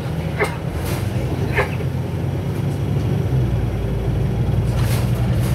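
Steady rumble of a city bus's engine and road noise heard from inside the passenger cabin, growing slightly heavier after about three seconds. Two brief higher-pitched noises cut in about half a second and a second and a half in.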